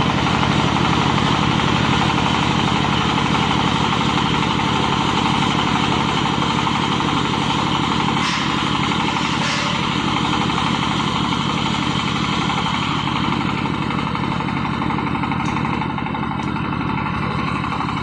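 Silage baling machine running steadily, a continuous mechanical drone with a fast, even pulse and a couple of faint clicks about halfway through.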